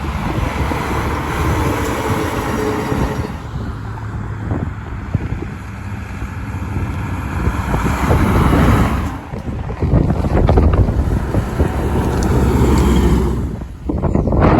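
Road traffic with trucks and cars going by: engine rumble and tyre noise that swell several times in the second half as vehicles pass close, with wind buffeting the microphone.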